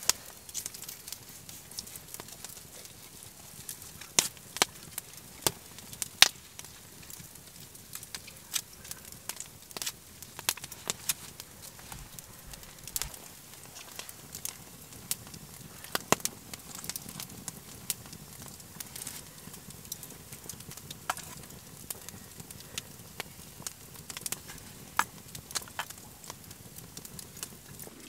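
Open wood campfire crackling: irregular sharp pops and snaps over a faint steady hiss.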